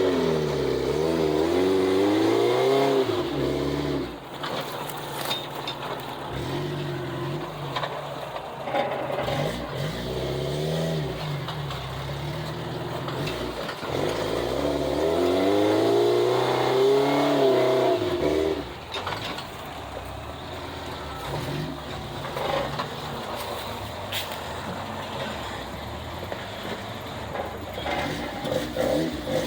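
Off-road vehicle engine revving hard in two long surges, its pitch rising and falling, the first in roughly the first four seconds and the second from about fourteen to eighteen seconds, dropping back to a lower, quieter run in between and afterwards, as it works up a rocky climb.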